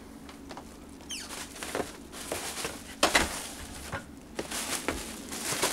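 Footsteps and the rustle of a full plastic bin bag being carried, with irregular scuffs and knocks, the sharpest about three seconds in.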